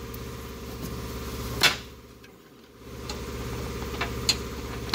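A few sharp metallic clicks from a wrench and the freshly loosened upstream oxygen sensor being worked on the exhaust, the loudest about one and a half seconds in. Under them runs a steady low machine hum that dips briefly around the middle.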